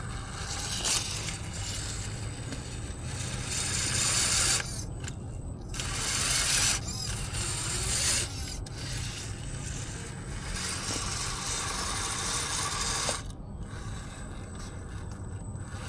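Axial Capra RC crawler's electric motor and gear drivetrain whirring and grinding in uneven bursts as it crawls, pausing briefly a couple of times.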